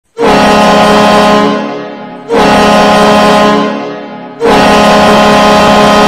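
The Bridgeport hockey team's 2001–08 arena goal horn sounding three blasts. The first two start suddenly, hold about a second and fade away, and the third starts about four and a half seconds in and holds steady.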